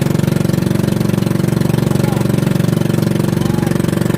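Engine of a motorized outrigger boat running steadily under way, with a fast, even beat.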